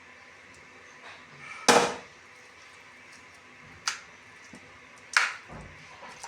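Three sharp clatters of kitchenware being handled, the first the loudest with a brief ring.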